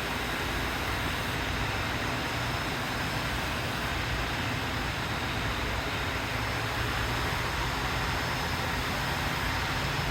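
Steady rushing noise with a faint low electric hum underneath, from greenhouse machinery running without change.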